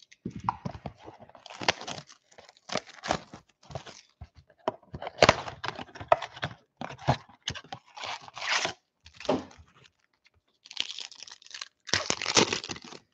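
Panini Mosaic trading-card blaster box being torn open and its foil card packs pulled out and handled: a run of short, irregular tearing, crinkling rustles of plastic wrap, cardboard and foil.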